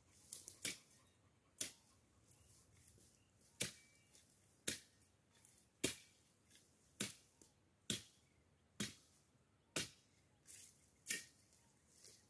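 Faint, sharp chopping strikes of a hand-held blade cutting dry brush, about ten strokes at roughly one a second, unevenly spaced.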